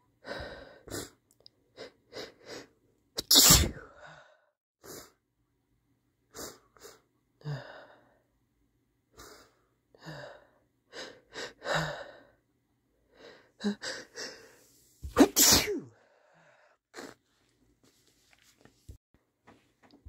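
A man sneezing hard twice, about three and a half seconds and fifteen and a half seconds in, with short breaths between as each sneeze builds.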